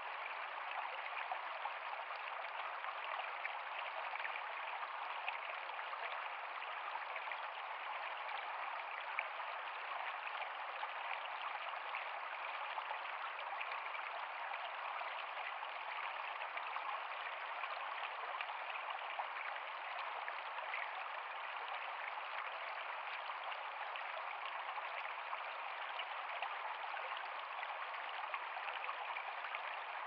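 Shallow stream flowing steadily over rocks and stones, its water splashing and gurgling without a break.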